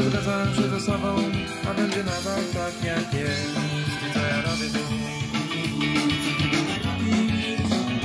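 Band music with guitar and drums playing from a Sony CFD-380L boombox's speakers, tuned to FM radio with the volume turned up.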